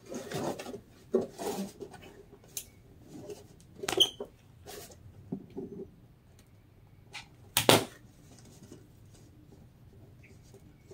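A thin fabric scarf rustling as it is handled, bunched and pressed into place, in short scattered bursts. A sharp knock about two thirds of the way through, as the hot glue gun is set down on the table, is the loudest sound.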